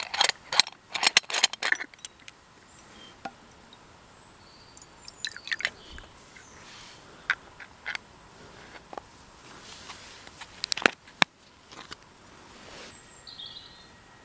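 Metal clicks, scrapes and knocks of a stovetop moka pot being unscrewed and its filter funnel set into the base: a quick run of sharp clicks in the first two seconds, then scattered single knocks, the loudest about eleven seconds in. Birds chirp faintly now and then.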